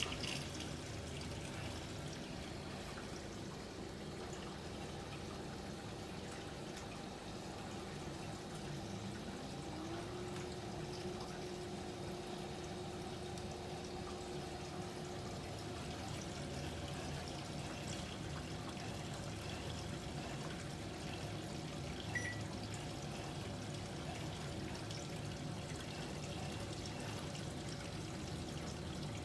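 Panasonic NA-VX9900 drum-type washer-dryer running a wash, with water pouring and trickling into the drum. A hum rises in pitch about nine seconds in and then holds steady for several seconds.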